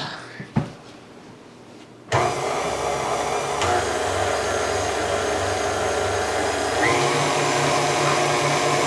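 KitchenAid Artisan stand mixer switched on about two seconds in, its motor running steadily as it beats cookie dough in a steel bowl; its pitch steps up around seven seconds in.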